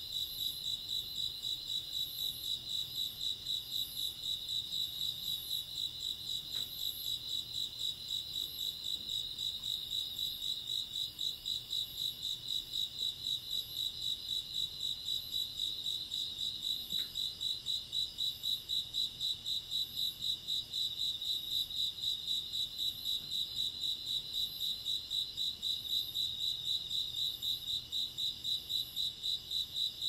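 Grass insects chirping in a steady, evenly pulsed trill of about three to four pulses a second, with a fainter, higher chirping from another insect over it.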